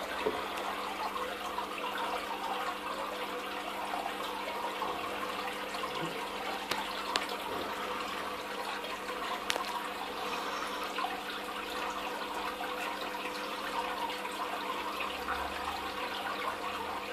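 Steady running and splashing of circulating aquarium water, with a low steady hum beneath it and a few faint clicks.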